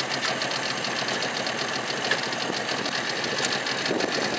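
Small outboard motor idling steadily, with a rapid, even ticking. A few short scratches of a match being struck on its box sound over it.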